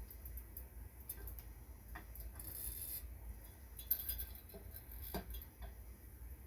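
Light clicks and clinks of ceiling fan parts being handled, with a short rubbing scrape about two and a half seconds in, as the dome piece is fitted back onto the fan.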